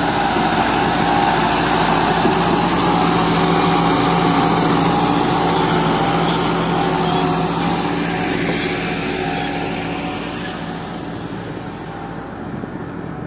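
Tractor engine running steadily, then growing fainter over the last few seconds.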